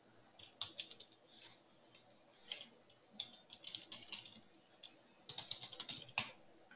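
Computer keyboard typing: faint, irregular key clicks, with a quicker run of keystrokes about five seconds in.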